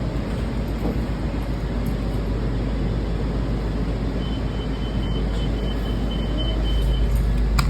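Washington Metro railcar running, heard from inside: a steady rumble of wheels on the track and the motors, with a faint thin high whine for a couple of seconds in the middle.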